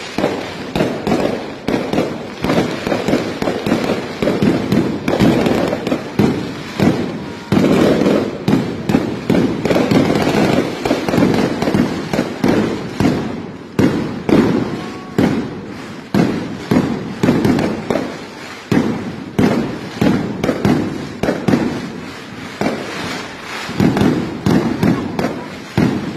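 Fireworks and firecrackers going off close by in a rapid, unbroken barrage of loud cracks and bangs, several a second.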